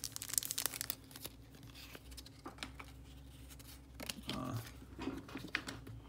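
Foil Pokémon booster pack wrapper crinkling and rustling in the hands. It is loudest in the first second, then gives way to quieter scattered clicks and rustles of handling.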